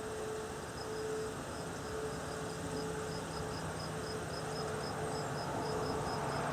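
Distant Whelen outdoor warning sirens heard as a faint steady tone that wavers in and out, with an insect chirping in a steady rhythm of about four chirps a second.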